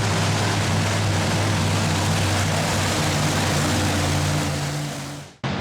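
Monster truck engine running loud and steady at a level pitch, with a heavy hiss of noise over it; it fades out just before the end.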